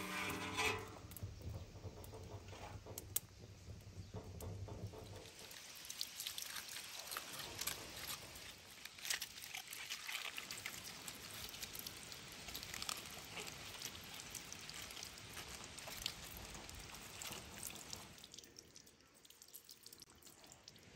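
Water poured from a metal jug over lettuce leaves as they are rinsed by hand, trickling and splashing onto stone paving, with many small splashes; it fades down near the end. A short pitched sound is heard right at the start.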